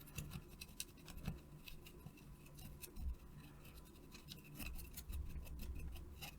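Faint scratching with many light, irregular clicks of a hand tool working over a circuit board, cleaning Blu Tack residue off it.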